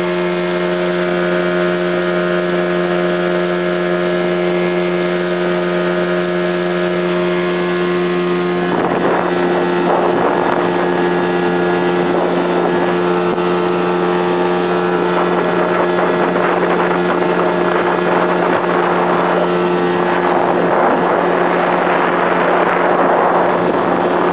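A small motorboat's engine running steadily at speed, holding an even pitch throughout. From about nine seconds in, a rushing wind and water noise grows over it.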